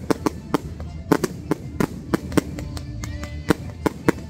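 Fireworks barrage firing shot after shot from close by: sharp cracks and bangs in quick, irregular succession, about three to four a second.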